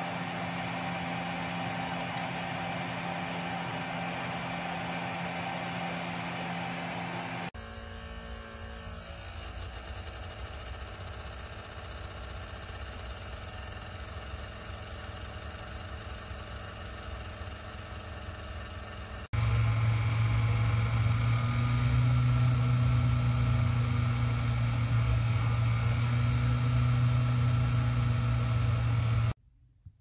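Ontel Handy Heater Turbo 800 plug-in ceramic space heater running, its fan giving a steady whirring hum. The hum changes abruptly in pitch and loudness twice, becomes louder with a strong low drone about two-thirds of the way through, and cuts off suddenly just before the end.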